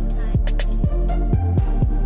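Background music with a beat: drum hits over sustained notes.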